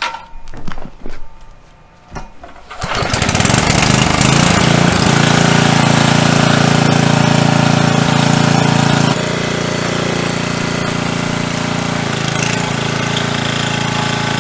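Small gasoline engine of a portable generator starting about three seconds in and then running steadily, a little quieter after about nine seconds; it runs after its leaking carburetor was resealed with new O-rings.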